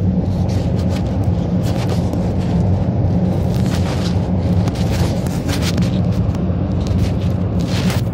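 Heated spray-paint booth's air system running with a steady low rumble, overlaid by many short, irregular bursts of hissing.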